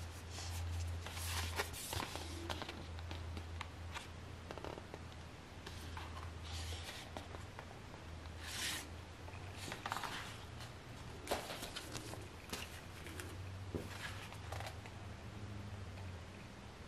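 A Blu-ray set's cardboard sleeve and fold-out case with plastic disc trays being handled, slid and opened. It makes irregular bursts of sliding, scraping and rustling over a steady low hum.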